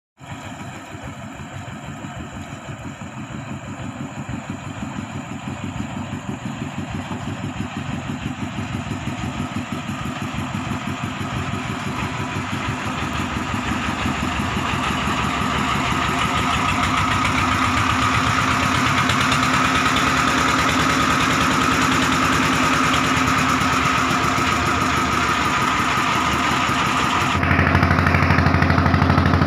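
Engine of a wooden motor ferry boat running steadily, growing louder as the boat comes in. Near the end the sound cuts to the engine heard close up, louder and deeper.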